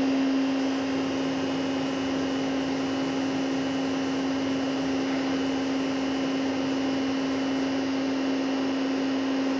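Pinacho Rhino 325 CNC lathe running with a steady hum and hiss as its turret carriage moves slowly along the bed.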